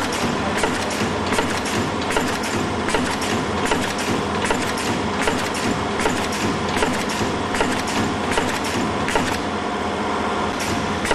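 Multi-track sachet packing machine running in automatic mode at 78 packs a minute: a steady mechanical clatter with a regular rhythm of clicks from its moving parts.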